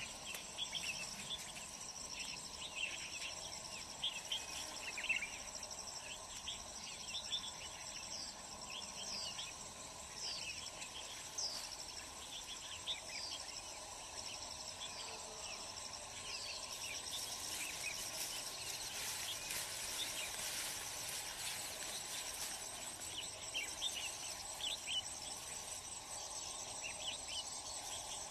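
Insects trilling steadily in high, even bands, the chorus swelling for a few seconds past the middle, with a bird's short falling chirps scattered through.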